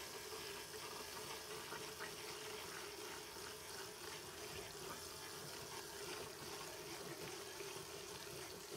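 KidzLabs Tornado Maker running: its small battery-powered propeller motor hums steadily while the propeller churns the water in the bottle into a spinning vortex.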